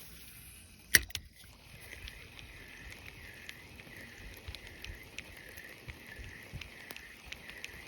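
A sharp click, then a spinning fishing reel being cranked in a steady retrieve, its whirr swelling and fading about twice a second with each turn of the handle.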